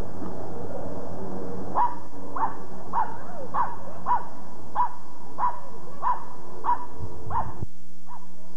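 A dog barking over and over in short, evenly spaced barks, about one every 0.6 s, starting about two seconds in, with a brief pause near the end.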